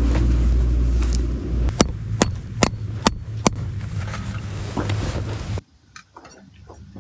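Steady low drone of a car running, heard from inside the cabin, with a regular ticking of about two ticks a second from just under two seconds in. Near the end the drone cuts out to a much quieter stretch.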